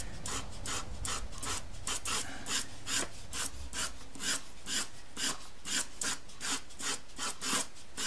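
Pastel pencil lead held flat on its side, rubbed back and forth across textured pastel paper in a quick, even rhythm of scratchy strokes, several a second.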